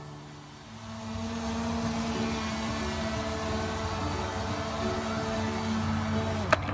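xCraft X2 drone's electric motors and propellers whirring steadily in a hover, coming up to full level about a second in. A single sharp click near the end.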